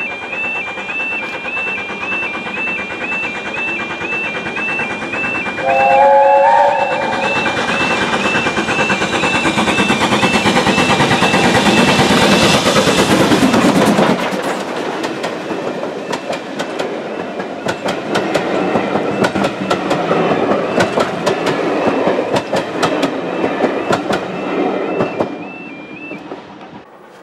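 A steam locomotive approaches and sounds its whistle briefly about six seconds in. Its exhaust beats grow loud as it passes, then the coaches roll by with a rhythmic clickety-clack of wheels over rail joints that fades away near the end.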